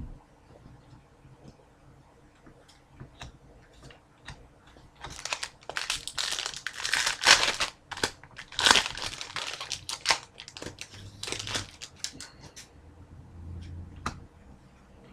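Foil trading-card pack wrapper crinkling and crumpling in the hands, loudest in a stretch of several seconds in the middle, with small clicks and rustles before and after.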